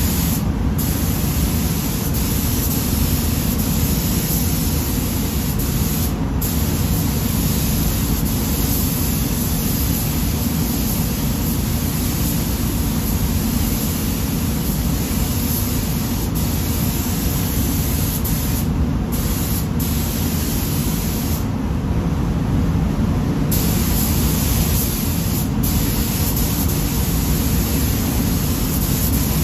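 Gravity-feed automotive paint spray gun hissing as the painter sprays a bumper cover, over the steady air noise of the paint booth. The hiss cuts out briefly a few times as the trigger is let off, once for about two seconds past the middle.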